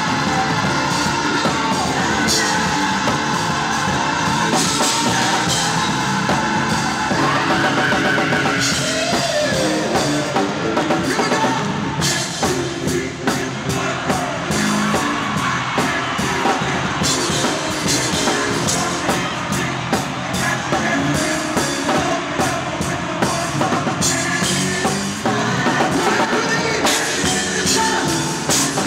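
Live gospel music: choir voices singing over a band with a drum kit keeping a steady beat.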